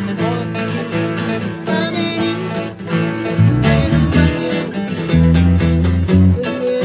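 Acoustic guitars strummed together in a live jam, joined by an electric guitar through a small practice amp, in a steady strummed rhythm.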